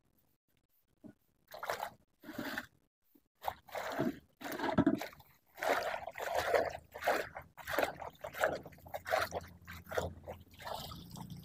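Cabbage leaves being washed by hand in a basin of water: irregular splashing and sloshing, with a low steady hum joining about halfway through.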